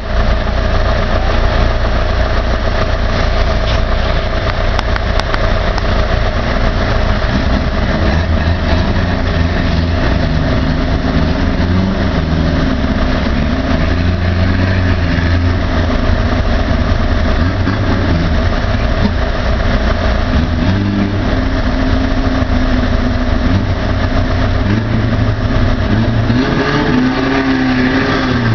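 Off-road vehicle's engine revving up and down as it crosses a river, over a steady, loud rush of water.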